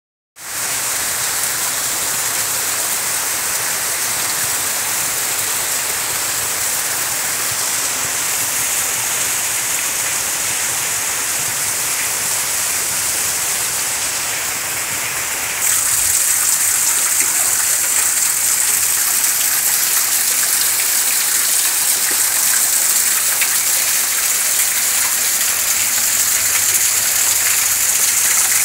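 Heavy rain falling steadily, a dense, even hiss. About halfway through it abruptly becomes louder and brighter.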